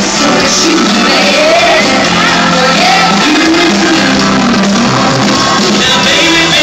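Live band and several singers performing an upbeat pop-soul song, heard loud from the arena crowd.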